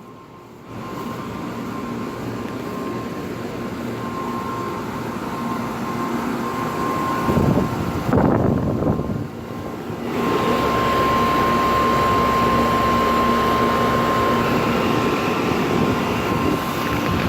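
Outdoor central air conditioner condensing units running: a steady fan and compressor hum with a steady whine, and a loud whooshing about seven to nine seconds in.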